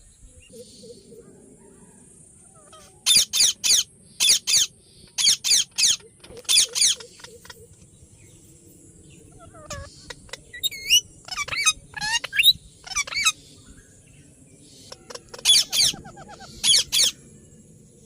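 Ringneck parakeet giving short, shrill calls in quick groups of two or three, with a run of varied, warbling chirps and whistles in the middle.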